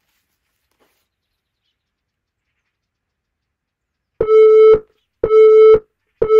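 Interval timer counting down: three short, identical beeps one second apart, starting about four seconds in, marking the last seconds of the rest period before the next work round.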